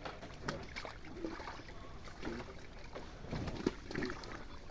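Water sloshing and splashing in a pond, with scattered knocks and faint voices in the distance.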